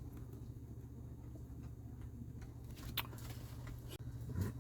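Quiet room tone with a low steady hum, and one sharp click about three seconds in.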